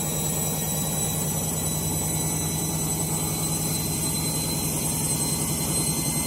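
Candy Grande Vita 7 kg washing machine spinning fast on its final spin, a steady loud drone with a low hum and rumble. The owner takes the noise as a sign that the drum bearings are on the way out.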